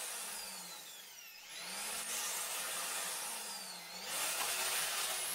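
Power drill boring into a thick boat bulkhead. Its motor pitch rises and falls as it eases off about a second in, picks up again, and dips once more near four seconds.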